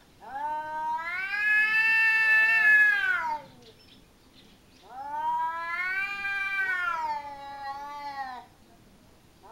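Domestic cats in a face-to-face standoff, making long, drawn-out threat yowls (caterwauling): two yowls of about three seconds each that rise and then fall in pitch, with a third starting at the very end.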